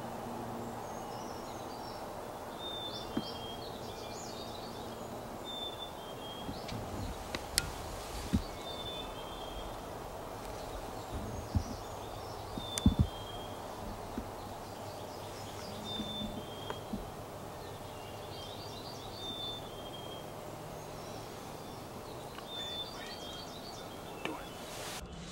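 Open-field ambience: a steady background hiss with a small songbird repeating short, high chirping calls every few seconds. A few sharp taps or snaps cut through, the loudest about halfway through.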